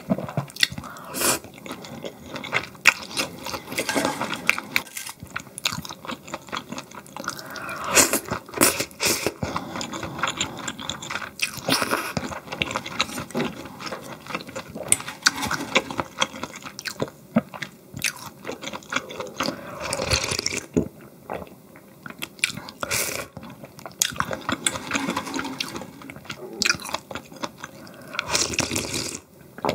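A person chewing and biting food close to the microphone, with many irregular sharp clicks and crunches.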